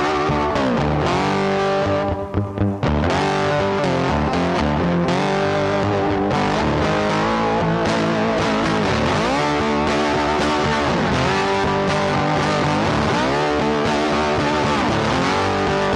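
Background music led by a distorted electric guitar, its notes bending down and up in pitch over a steady bass line.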